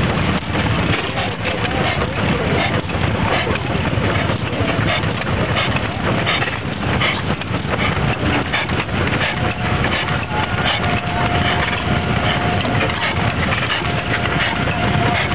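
3 hp Blackstone single-cylinder horizontal oil engine running steadily, with a continuous stream of knocks and clatter from the engine and its valve gear.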